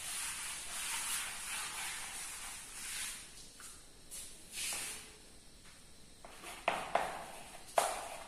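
A cloth rubbing across a chalkboard in soft, swishing strokes, then, near the end, the sharp taps and scrapes of chalk writing on the blackboard.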